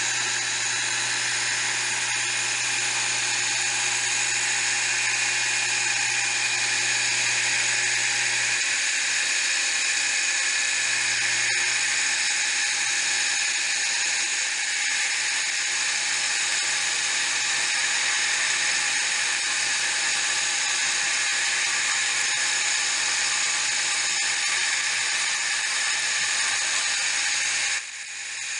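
High-speed spindle motor of a homemade milling machine running steadily with a high-pitched whine; a lower hum under it drops away about a third of the way in, and the level dips briefly near the end.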